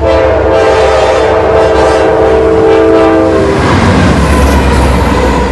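Locomotive air horn sounding one long steady chord of several notes for about three and a half seconds, then cutting off, leaving the low rumble of the train.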